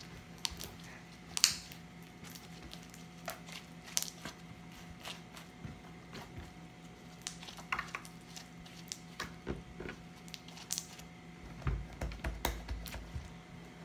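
Homemade glue slime with add-ins being kneaded, pressed and stretched by hand: scattered small squishes, clicks and pops, with a few low thuds near the end, over a faint steady hum.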